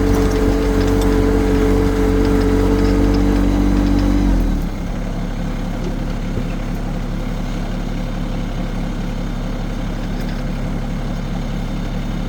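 Yanmar compact tractor's diesel engine running steadily at higher throttle, then throttled down to a lower, quieter idle about four and a half seconds in.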